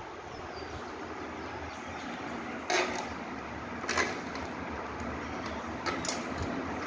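Handling noise from wiring a ceiling fan: a few short scrapes and clatters as the lead wire is pulled through the downrod and canopy and the fan parts are moved, one about three seconds in, one at four seconds and a quick pair near six seconds, over steady background noise.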